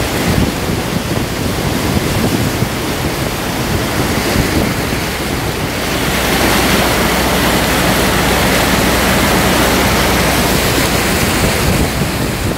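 Fast brown floodwater rushing and churning, a loud, steady rush of water as a vehicle wades through it. From about six seconds in the rush grows denser and more even.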